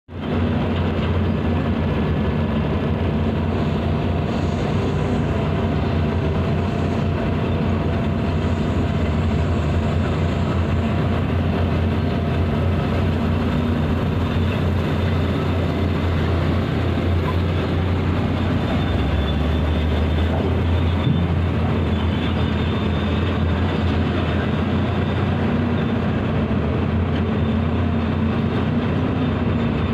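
Water tanker truck's diesel engine running steadily, its deep note shifting lower for a moment about two-thirds of the way through.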